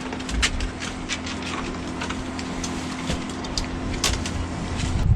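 Light clinks and knocks of cups and kitchenware being handled while tea is made, many small taps over a steady low hum that stops near the end.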